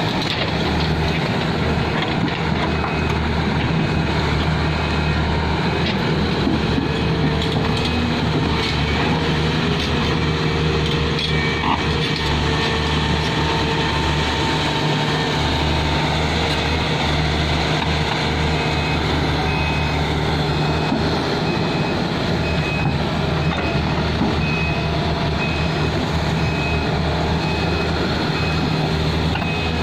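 Large excavator's diesel engine running steadily. A repeating warning beep sounds over it for the first several seconds and again from about two-thirds of the way through.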